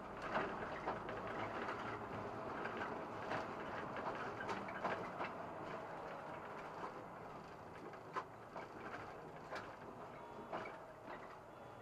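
SOR NB 12 city bus under way, heard from inside: a steady running noise with frequent rattles and clicks from the body and fittings, growing gradually quieter toward the end.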